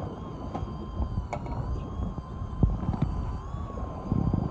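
Electric fishing reel winding in line under load, a steady high whine that wavers slightly in pitch as the strain changes, over wind and wave noise.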